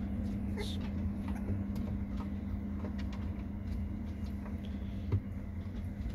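A steady low machine hum, with faint light scratching and shuffling of puppies moving on a wooden floor and one small knock about five seconds in.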